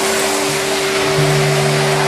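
Henry Wash wet-and-dry vacuum cleaner running, sucking water up off a concrete floor through its floor tool: a steady rush of air with a hum of several steady tones. A deeper hum comes in about a second in as the load on the motor changes.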